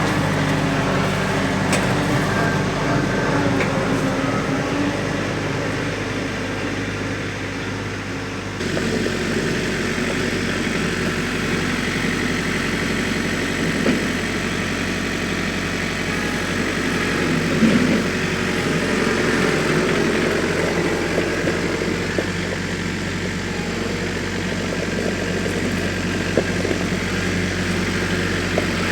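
Compact tractor engine running steadily, with the engine note changing abruptly about nine seconds in.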